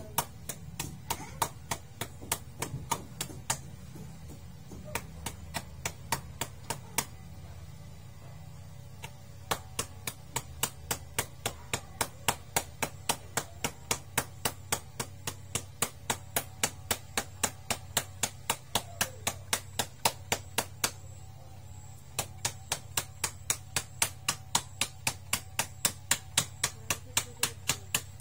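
Wooden stick pounding an octopus on a wooden board to tenderise the meat: sharp, even blows about three a second, with two short pauses.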